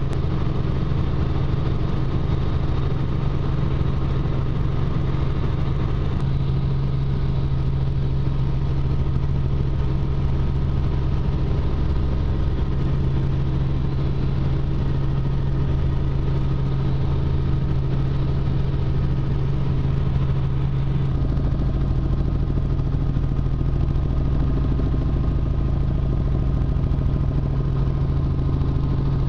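Tour helicopter in flight, heard from inside the cabin: a steady drone of engine and rotor, a strong low hum with a fainter higher whine, and a slight shift in the low drone about two-thirds of the way through.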